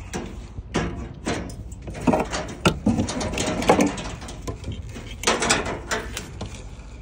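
Irregular clicks, knocks and rubbing of hands handling the truck's air hoses, electrical cable and metal hose-hanger fittings, over a low steady rumble.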